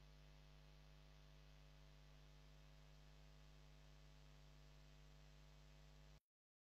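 Near silence: a faint, steady low hum over light hiss, cutting out to dead silence about six seconds in.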